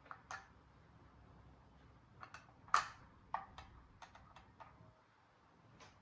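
Small toy pieces being handled during an unboxing: a scattered series of light clicks and taps, the loudest nearly three seconds in.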